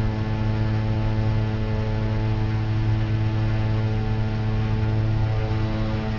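Twin PT6 turboprop engines and propellers running steadily at power on a ground run, heard from the cockpit: an even, low drone with a constant hum in it that does not change in pitch.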